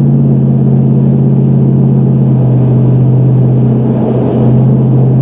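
Motor vehicle running with a steady, loud low drone and hum.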